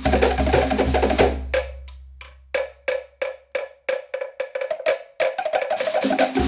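Cook Islands drum ensemble of wooden slit drums playing a fast Manihiki/Rakahanga beat. About a second and a half in, the full ensemble drops out and leaves a single slit drum striking a sparse, broken pattern. The full ensemble comes back in near the end.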